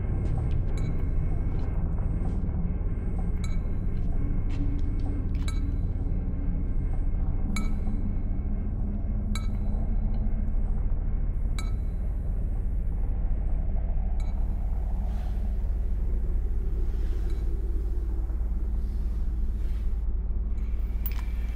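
Dark sound-design ambience: a steady deep rumbling drone with occasional sharp metallic clinks and ticks. About two-thirds of the way through, a hissing wash joins it and swells and fades a few times.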